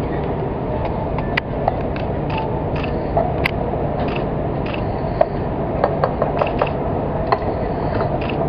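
Scattered light clinks and taps of utensils and plates as food is plated at a counter, over a steady background noise.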